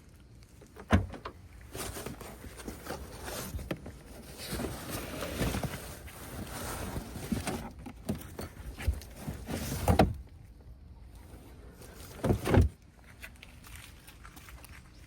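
Handling noises in a parked car's cabin with the engine off: a sharp knock about a second in, rustling and shuffling, then a clunk around ten seconds in and a double clunk a couple of seconds later.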